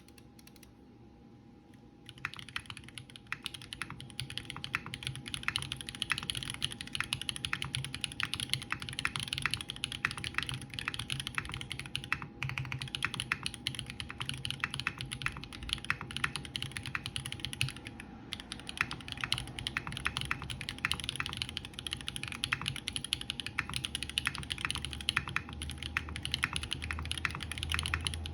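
Mechanical keyboard with BSUN Holy Panda tactile switches in a brass plate and PBT keycaps, typed on quickly and continuously starting about two seconds in, with brief pauses.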